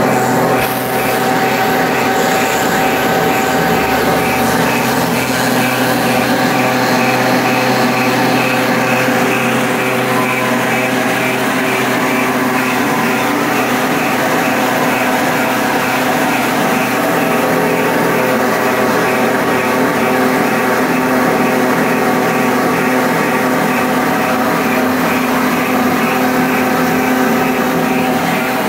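Plastic strand pelletizer running: its electric motor and belt-driven cutter steadily chopping extruded plastic strands into granules, a dense machine drone made of many steady tones.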